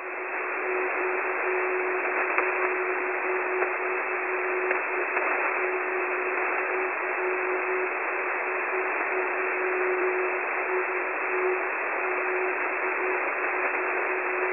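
Shortwave receiver audio of an unidentified twin-carrier signal on 5110 kHz: a steady tone over static hiss in the narrow band of the receiver.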